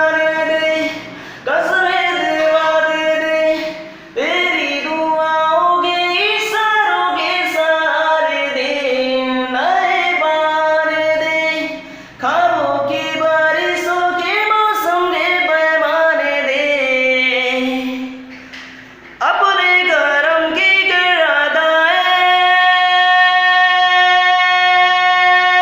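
A voice singing wordless melodic phrases that slide and bend in pitch, with short breaks between phrases, ending on one long held note about 21 seconds in.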